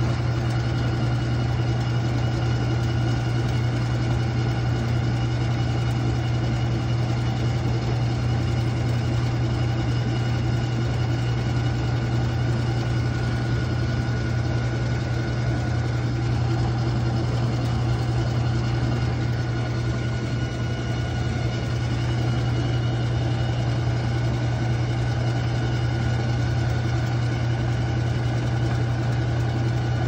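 Whirlpool top-load washer with an agitator running, a steady loud motor hum with a grinding, rattling drone, which the owner suspects comes from the pump.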